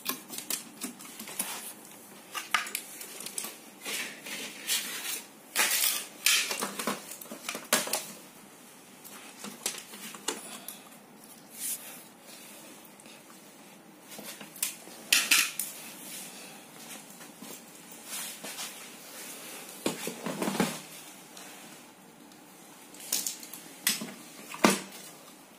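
Irregular clicks, knocks and rustles of plastic wire connectors and small parts being handled on a TV's sheet-metal back chassis, with a few louder knocks as pieces bump the metal.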